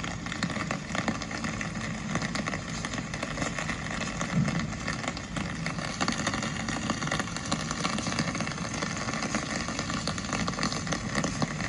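Steady rain: a dense patter of drops over a low, even hum of street noise.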